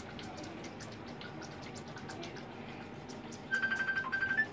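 A spinning fishing reel being cranked to wind line onto its spool, giving faint, irregular clicking. About three and a half seconds in, a rapid run of high electronic beeps, like a phone ringtone, sounds for about a second and is louder than the reel.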